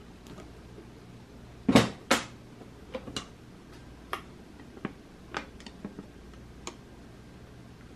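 Hard plastic clicks and clacks of a 1950s Lucite handbag being handled: two sharp clacks just under two seconds in, then a scattering of lighter clicks.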